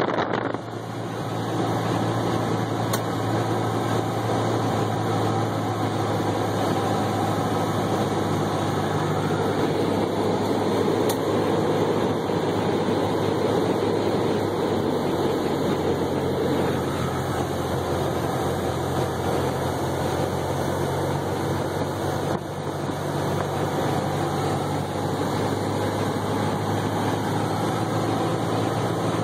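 Piston engine and propeller of a single-engine high-wing light aircraft running steadily, heard from inside the cabin on the approach to land. The level dips briefly about two-thirds of the way through.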